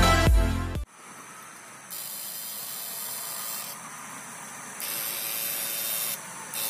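Electronic music cuts off just under a second in; then a high hiss with a faint whine switches on and off in blocks of one to two seconds, the sound of an electrofishing rig's inverter being keyed while the rod is held in the water.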